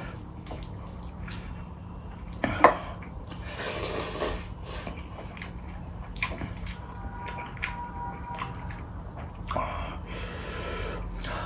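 Wet squelching of fingers mixing rice with thin chicken curry on a steel plate, with a couple of sharp clicks about two and a half seconds in.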